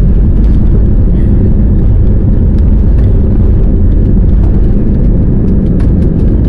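Airliner's jet engines at takeoff thrust during the takeoff roll, heard from inside the cabin over the wing: a loud, steady low rumble.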